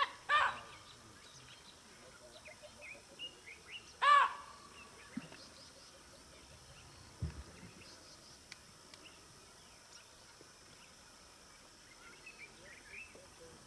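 Birds calling: two loud, short, harsh calls about four seconds apart, over faint scattered chirping. A brief low thud comes about seven seconds in.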